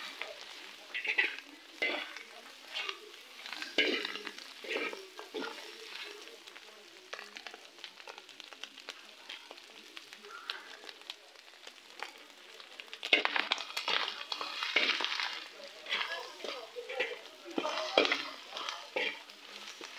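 Matumbo (tripe) and onions sizzling in a pan while a metal spatula stirs and scrapes them around in irregular strokes. The stirring gets busier and louder about two-thirds of the way in.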